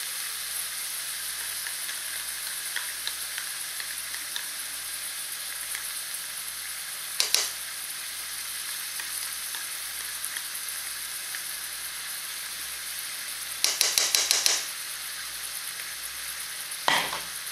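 Diced onion frying in hot oil in a stainless steel pot, a steady sizzle. Sharp knocks of a utensil against the pot break in about seven seconds in, as a quick run of taps a little later, and once more near the end.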